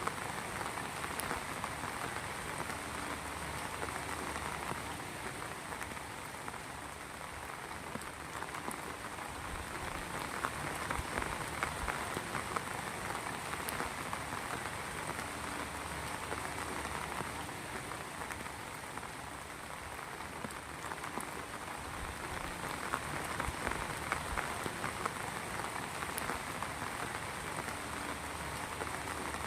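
Heavy rain falling steadily, a dense patter of drops that swells and eases gently every few seconds.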